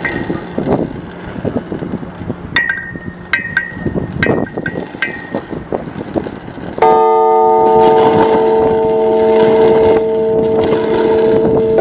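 Morecambe Bay Time & Tide Bell, a large cast bronze bell, being struck by hand with mallets: several light knocks with brief high pings, then about seven seconds in a hard strike that sets the bell ringing loudly with a chord of steady overlapping tones that keeps sounding.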